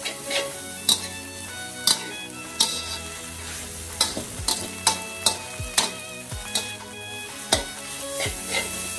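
Metal spatula clacking and scraping against a wok as stir-fried rice vermicelli is tossed, over a steady frying sizzle. The sharp clacks come about every half second to a second and quicken about halfway through.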